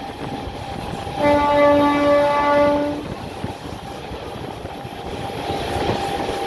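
Train horn sounding one steady blast of about two seconds, starting a little over a second in, over the continuous running noise and rail clatter of a moving train.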